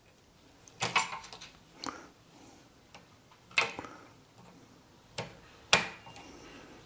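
Half a dozen sharp, irregularly spaced metal clicks and taps. They come from pliers and a circlip working against a Land Rover prop shaft universal joint held in a steel bench vice, as the circlip is fitted into the joint's yoke.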